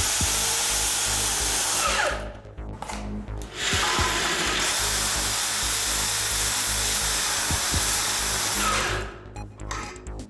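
Electric power drill running in two long bursts, about two seconds and then about five seconds, each winding down with a falling whine as the trigger is released.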